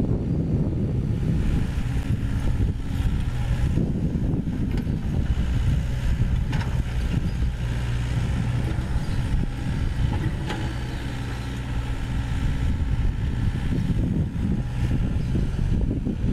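Sany SY75 mini excavator's diesel engine running steadily while the machine digs, with a few short knocks from its working parts.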